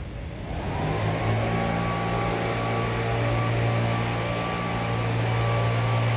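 A steady motor hum made of several pitched tones. The tones rise in pitch for about the first second, then hold steady.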